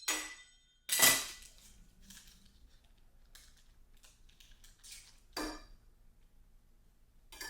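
Metal cookware and utensils clattering: a loud clank with a brief ring about a second in, a second clank about five and a half seconds in, and lighter clinks and scrapes between.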